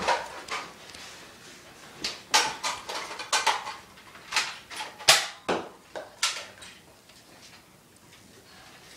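Sharp plastic clacks and knocks from a Nerf dart fight: blasters being worked and fired, darts striking. There are a dozen or so in quick, irregular succession, and the last two seconds are quieter.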